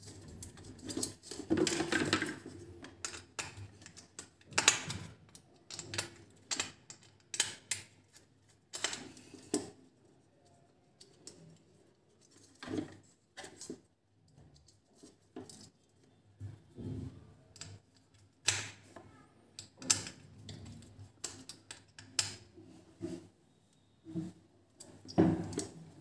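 Irregular clicks, taps and rattles of a plastic bulb holder being handled, with a small screwdriver turning its terminal screw to fasten a wire.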